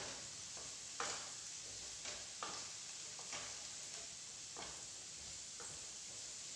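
Chopped vegetables sizzling in butter in a stainless steel pan as a wooden spoon stirs them, the spoon scraping and knocking against the pan about once a second over a steady faint hiss.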